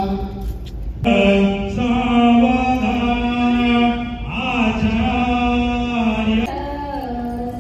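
A man chanting Hindu wedding mantras in long, held notes, with short breaks between phrases.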